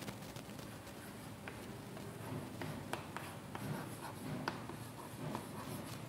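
Chalk writing on a chalkboard: irregular light taps and short scratching strokes as letters are written out.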